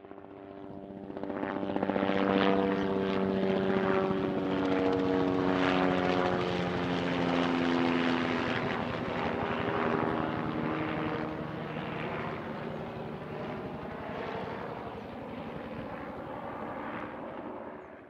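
An aircraft flying past: its engine drone swells in over the first two seconds, the pitch falls steadily as it goes by, and it fades away near the end.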